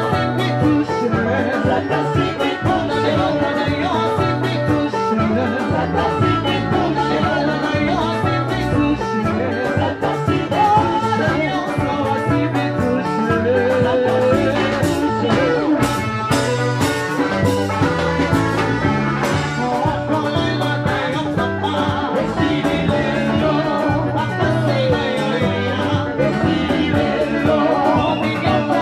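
Live band music: women singing into microphones over electric guitar and drums.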